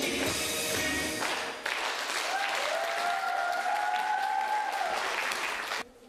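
A recorded song with singing ends about a second in, and the audience applauds for about four seconds, with a faint held note under the clapping. The sound cuts off suddenly near the end.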